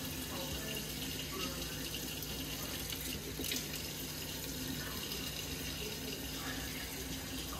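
Kitchen sink tap running steadily, water pouring and splashing into the sink.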